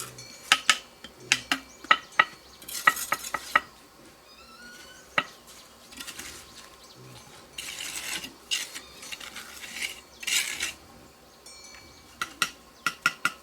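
Irregular sharp clicks and knocks of hard objects, with a few short scraping or rustling bursts in between.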